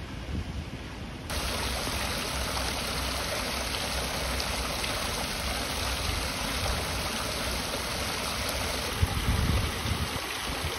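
Water spouts on a pool wall pouring into a swimming pool: a steady splash of falling water that starts abruptly about a second in. There are a few low rumbles near the end.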